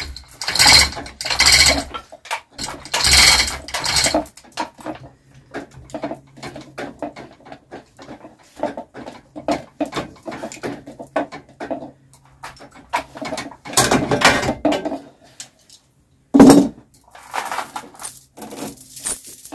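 Steel lifting chains of an engine hoist clinking and rattling in irregular bursts as they are handled, with one sharp metallic clank late on.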